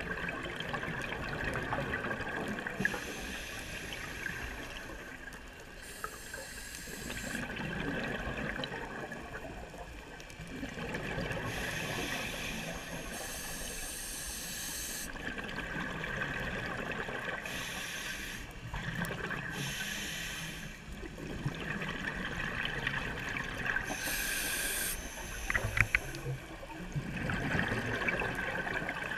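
A scuba diver breathing through a regulator underwater: a hiss on each inhale alternating with a bubbling rush on each exhale, over and over. A steady thin high tone runs underneath.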